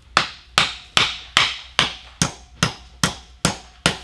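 Claw hammer striking the steel pin of a hammer drive pin anchor set in concrete: ten sharp, evenly spaced blows, about two and a half a second, driving the pin down until it spreads the anchor and locks the wood to the block.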